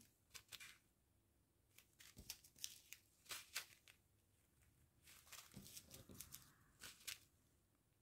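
Faint, intermittent crinkling of small plastic zip-lock bags of diamond-painting drills being handled in the fingers, in short bunches of crackles.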